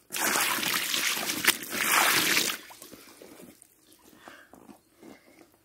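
Water pouring and splashing out of a canvas bucket for about two and a half seconds, then stopping.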